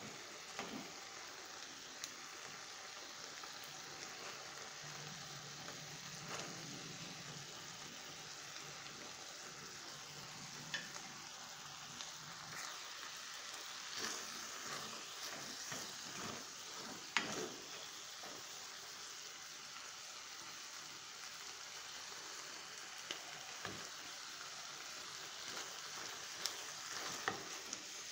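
Chicken frying in sauce in an enamelled pan, with a steady sizzle. A few sharp clicks and scrapes come from a utensil stirring against the pan.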